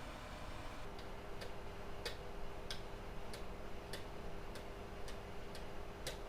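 Car radiator fan motor running with a steady hum and a regular tick, about one and a half ticks a second, both starting about a second in.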